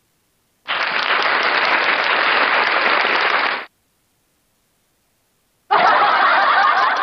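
Canned applause sound effect played from a V8 sound card's effect button, lasting about three seconds and cutting off sharply into dead silence. About two seconds later a second canned effect starts, a noisy crowd-like sound with wavering tones.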